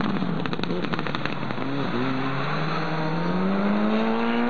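Rally car engine under hard acceleration, its pitch climbing steadily in one long pull through the second half. A few sharp crackles in the first second.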